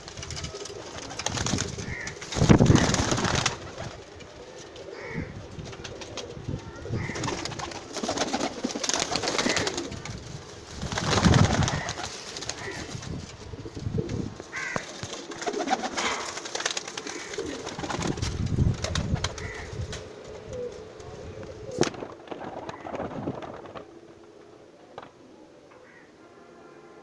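Domestic pigeons cooing over and over, with several louder bursts of wing flapping, the biggest a few seconds in and near the middle.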